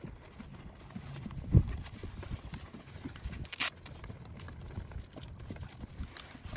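Wind buffeting the microphone in uneven low gusts, with scattered clicks and knocks from handling the nylon straps, buckles and hose of a small scuba-tank backpack: a thump about a second and a half in and a sharp click about three and a half seconds in.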